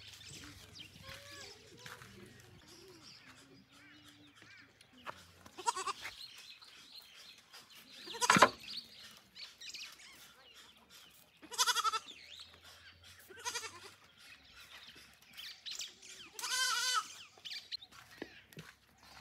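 A herd of domestic goats bleating, with several separate calls a few seconds apart. The loudest call comes about eight seconds in.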